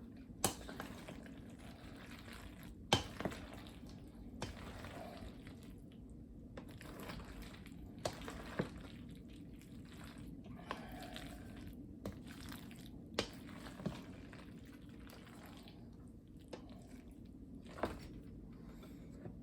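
A spoon folding a mayonnaise-dressed macaroni salad in a bowl: faint wet stirring with a few sharp clicks of the spoon against the bowl, over a low steady hum.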